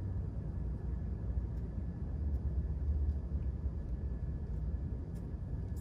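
Steady low rumble of room background noise with no speech, plus a few faint ticks.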